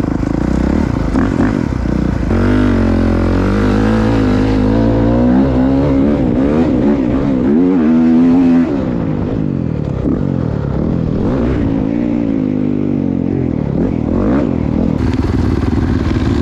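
Dirt bike engine under throttle, its pitch climbing and falling as it is worked through the revs. It is loudest about eight seconds in, then the throttle is chopped and the engine runs on lower and steadier.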